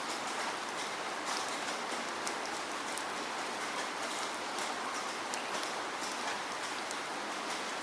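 Steady rainfall, an even hiss of rain with scattered sharp drop ticks on a surface.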